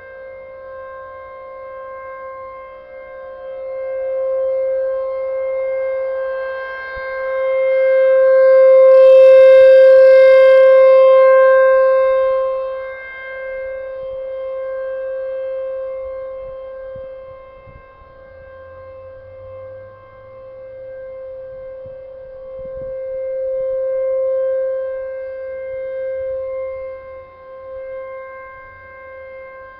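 American Signal Tempest outdoor warning siren sounding its steady alert signal in a monthly test: one held tone with overtones at an unchanging pitch. It swells and fades in slow waves, loudest about ten seconds in and again near the end.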